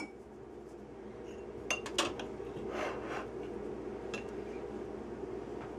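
A few light clinks of utensils against a small ceramic cup of pomegranate-honey glaze as a basting brush is taken up, over a steady low hum.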